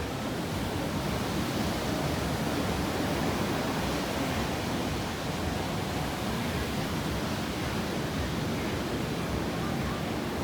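Steady wash of ocean surf breaking at a reef point.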